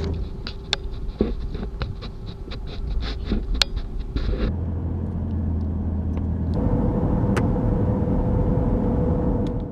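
Car driving: steady low engine and road rumble with a faint steady hum, and scattered sharp ticks over the first few seconds.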